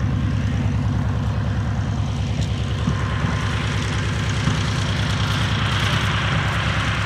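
Vought F4U Corsair's Pratt & Whitney R-2800 radial engine running at taxi power, a steady low, pulsing rumble. A higher rushing noise from the propeller grows louder near the end.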